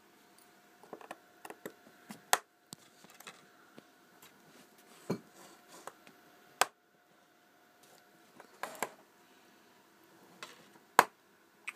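Scattered light clicks and taps of a small screwdriver and plastic phone parts being handled while an LG GD510 mobile phone is taken apart, with a few sharper clicks, the loudest near the end.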